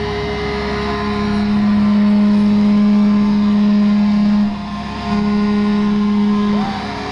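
Heavily distorted electric guitar and bass holding one loud, steady low note through the PA. The note breaks off about four and a half seconds in, comes back half a second later, and stops shortly before the end.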